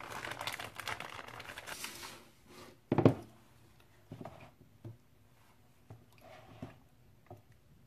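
Plastic crinkling for about two seconds, then one loud knock about three seconds in. After it come a few light taps and a short scrape as a silicone spatula begins stirring oil and butter chunks in a plastic tub.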